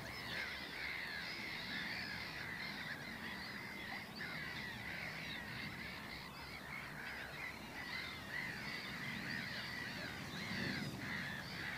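A black-headed gull colony calling: a continuous chatter of many harsh, overlapping calls.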